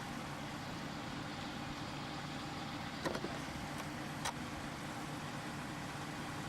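An engine running steadily at idle, with two short clicks about three and four seconds in.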